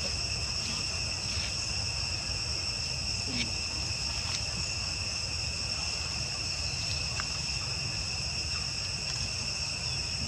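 Steady chorus of insects: a continuous high-pitched shrill at two pitches, over a steady low rumble.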